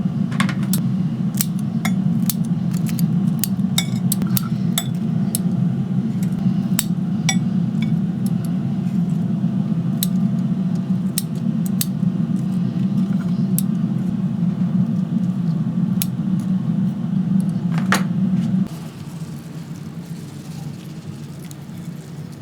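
Kitchen work sounds: a steady low hum with scattered sharp clinks and ticks of metal and glass throughout. The hum cuts off suddenly near the end.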